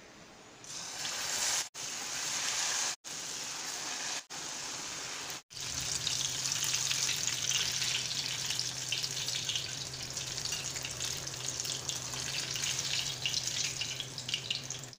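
Batter-coated ripe plantain fritters (pazham pori) deep-frying in hot oil: a steady, crackling sizzle. The sound drops out for an instant four times in the first six seconds, then carries on unbroken with a faint low hum underneath.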